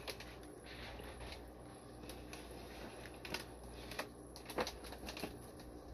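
Plastic fish-shipping bags being handled, with faint crinkling rustles and a few scattered sharp clicks, the loudest a little over halfway through.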